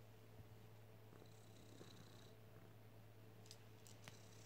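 Domestic cat purring faintly, with a few small clicks near the end.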